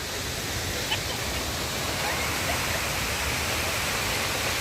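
Waterfall: a steady rush of falling water, growing a little louder in the first couple of seconds.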